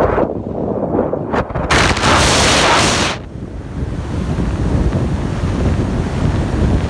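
Wind noise from the airflow around an Arcus glider in flight, rushing against the cockpit and the microphone. A louder hissing rush about two seconds in lasts roughly a second and a half.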